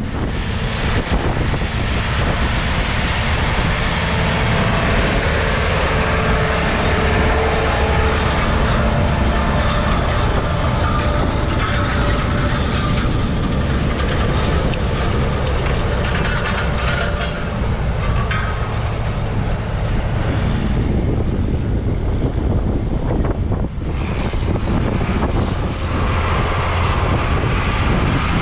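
Heavy diesel harvest machinery running steadily and loudly, a dense mechanical clatter over a low engine drone. Its sound shifts, growing brighter, about 24 seconds in.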